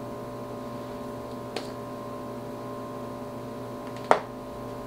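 Steady electrical hum made of several fixed tones. A faint click comes about a second and a half in, and a sharper, louder click about four seconds in.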